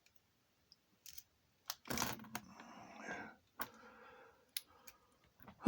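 Lock pick and tension tool working inside a cheap lock: a few scattered small metal clicks, with a short scraping rattle about two seconds in.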